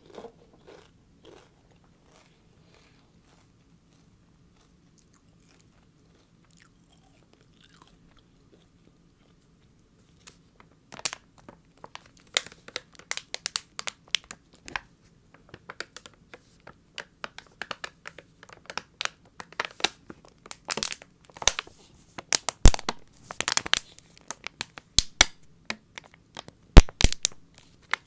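Crisp crunching and crackling right at the microphone, as ASMR trigger sounds: after about ten seconds of near silence, dense irregular crunches start and run on, several a second, with sharp loud peaks.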